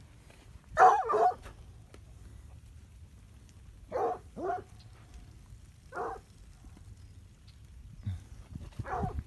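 Plott hound barking to call dairy cows in: a loud, longer bark about a second in, then shorter barks, two together at about four seconds, one at six and one near the end.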